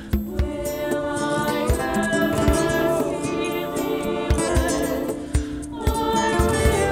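Background music: a song with singing voices over a steady drum beat.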